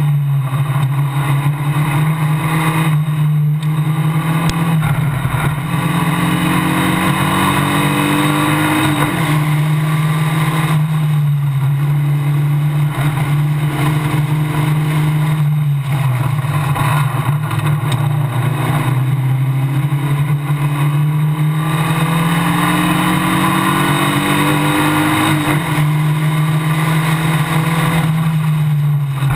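Engine of a Formula Basic single-seater race car heard from on board at racing speed. Its pitch climbs again and again as it pulls hard, broken by brief dips every few seconds.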